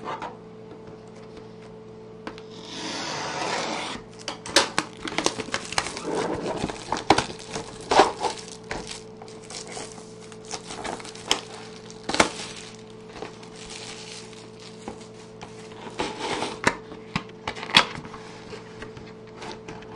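Clear plastic shrink-wrap being torn and peeled off a cardboard trading-card box: a longer rip about three seconds in, then crinkling of the film with many sharp clicks and knocks as the box is handled.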